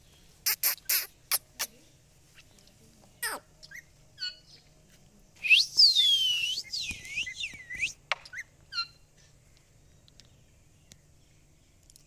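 Rose-ringed parakeet calling. Several sharp clicks and a few short chirps come first, then about halfway through a loud run of harsh screeching calls that slide up and down in pitch, followed by one last chirp.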